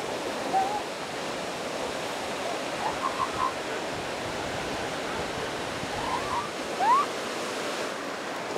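Steady surf with several short, high-pitched yelps from a newborn northern elephant seal pup. The loudest is a quick rising call about seven seconds in.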